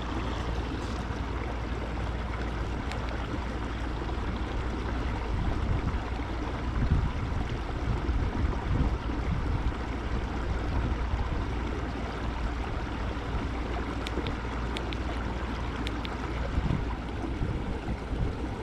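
Steady rush of water and wind noise around a fishing kayak on a lake, with a few louder bumps and splashes in the middle.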